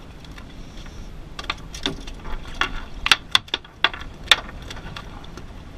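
Irregular sharp knocks and clicks of a landed summer flounder being handled on a fiberglass boat deck. A quick cluster of them comes in the middle, and the loudest is about three-quarters of the way through.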